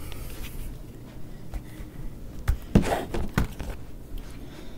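Handling noise as the camera is gripped and moved to a new position: a few knocks and rubbing thumps, the loudest cluster about three seconds in.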